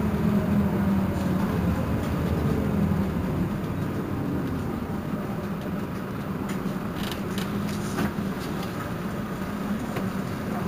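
Heuliez GX 327 city bus engine running with a steady low drone. Its pitch falls over the first few seconds, and a few light clicks and rattles come about seven to eight seconds in.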